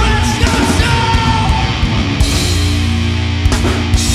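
Live heavy rock band playing loud: drum kit and electric guitar over steady low notes, with yelled vocals. Two sharp drum or cymbal hits stand out near the end.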